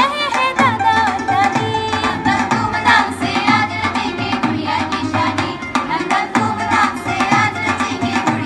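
Hindi film-style song playing: an instrumental stretch with drums keeping a steady, quick beat and a melody line over it.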